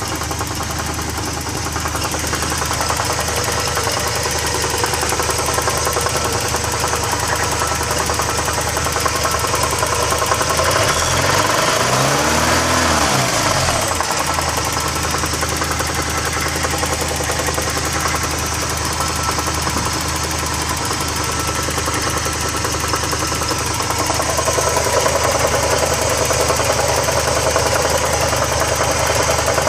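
Porsche 944's inline-four engine idling with a rattle, blipped once about a third of the way through so that its pitch rises and falls back. The owner says the rattle started suddenly and goes away when the engine is revved.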